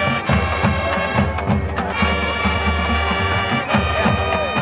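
High school marching band playing: brass and woodwinds holding loud chords over bass and percussion hits.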